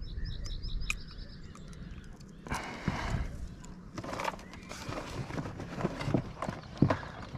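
Irregular knocks, clicks and clatter of tackle being handled in an inflatable boat while a small pike is unhooked, with one sharp knock near the end. A short run of high chirps sounds in the first second.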